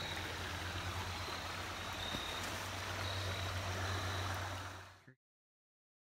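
Creek water running past, a steady rush with a low rumble under it, fading out about five seconds in.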